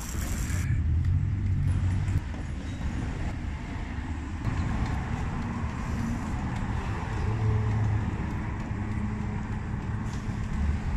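Road traffic noise: a steady low rumble of passing vehicles.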